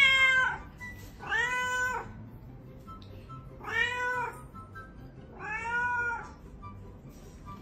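Ginger cat meowing four times, each meow a drawn-out call that rises and then falls in pitch, with pauses of one to two seconds between them.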